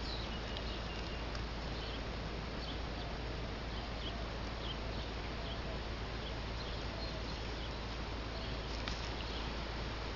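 Steady outdoor background hiss with a low hum, dotted with faint, short high chirps every second or so and a single small click near the end.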